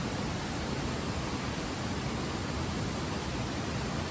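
Steady, even hiss of falling rain, with no single drops or events standing out.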